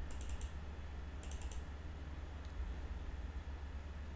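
Computer keyboard keys tapped in two quick runs of about four presses each, then a single press, over a low steady hum.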